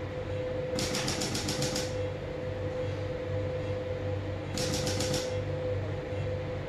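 Intracorporeal lithotripter firing on a urinary stone: two bursts of rapid, evenly spaced clicks, about nine a second, the first about a second long starting near the start, the second shorter near the middle, over a steady low equipment hum.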